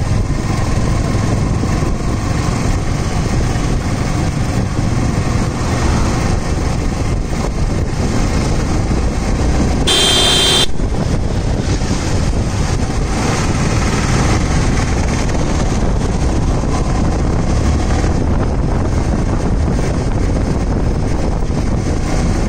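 Yamaha R15 V3's 155 cc single-cylinder engine running under way in fifth and then sixth gear as road speed rises, mixed with wind noise and traffic. A short horn blast sounds about ten seconds in.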